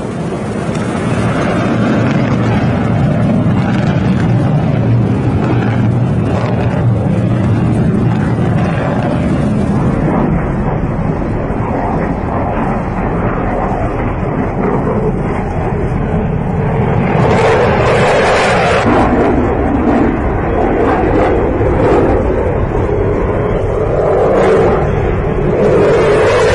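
Chengdu J-20 stealth fighter's twin WS-10 turbofan engines in flight, a loud continuous roar. It swells brighter and harsher about 17 seconds in, then settles back to a deep rumble.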